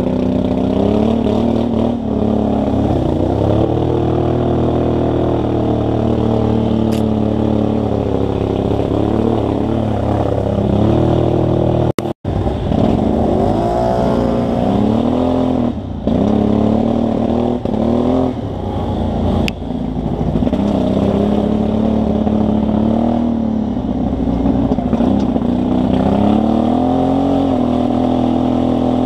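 ATV engine running under way, its pitch rising and falling over and over as the rider accelerates and eases off the throttle. The sound cuts out for a moment about twelve seconds in.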